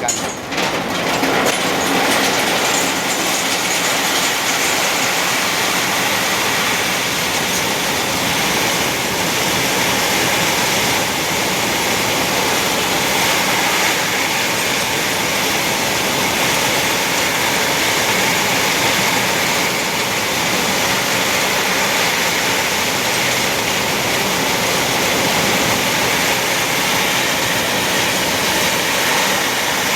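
Steady machinery noise running without a break, with no distinct knocks or changes.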